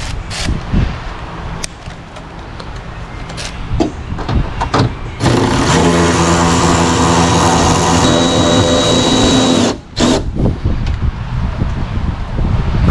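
Cordless power tool with a 10 mm socket running steadily for about four and a half seconds at one pitch, spinning a nut off a spoiler stud, then stopping abruptly. Before it come scattered clicks and knocks of the tool being handled and fitted.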